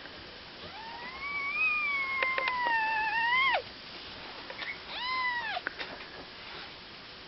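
A kitten mewing: one long, high, wavering mew lasting about three seconds, then a short arched mew about five seconds in.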